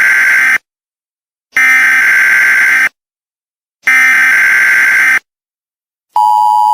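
Emergency Alert System header: repeated bursts of harsh digital data tones, each about a second and a half long with about a second of silence between. Near the end, the steady two-tone EAS attention signal begins.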